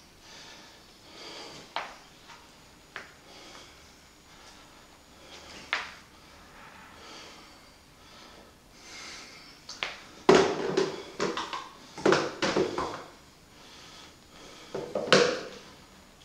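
Knocks and clatters of painting tools being handled, sparse at first, then a loud burst of them about ten seconds in and another about fifteen seconds in.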